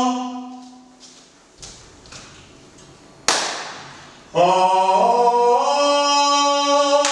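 A single voice singing a long held vowel without words, which fades out in the first second. About three seconds in comes one sharp knock that rings on, and a second later the voice returns with another held note that steps up in pitch.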